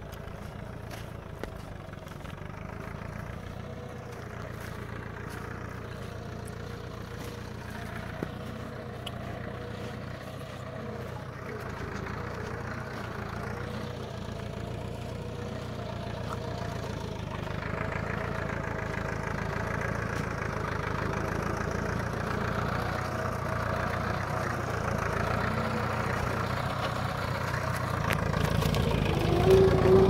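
Tractor engine running steadily, heard faintly at first and slowly growing louder as the tractor draws nearer, loudest near the end.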